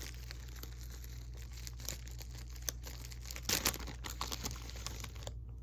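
Wrapping paper crinkling and rustling as small items are unwrapped by hand, with a louder burst of crackling about three and a half seconds in.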